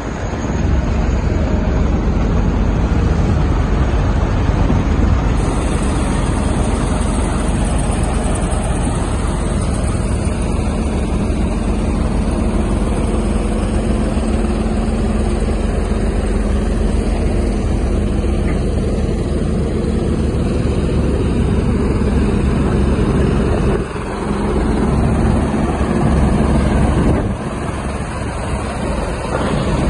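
A Fintec 570 mobile screener running at work: its diesel engine runs steadily, mixed with the noise of sand and gravel pouring off its conveyors. The level dips briefly twice near the end.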